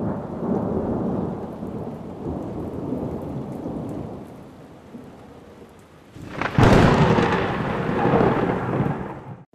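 Thunderstorm: steady rain with rolling thunder that dies away, then a sharp thunderclap about two-thirds of the way through and a loud rumble that cuts off suddenly at the end.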